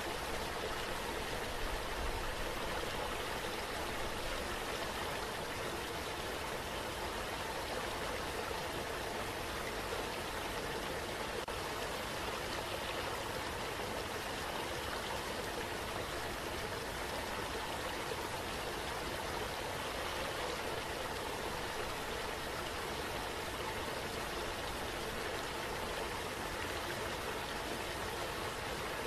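Steady rushing water, an even hiss that holds unchanged throughout.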